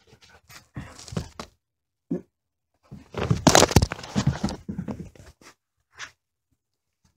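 Bumping, scraping and rustling of a small camera being knocked about and tipped over on carpet. A longer, rough scuffle of noise runs from about three to five seconds in, and there is a short scrape about six seconds in.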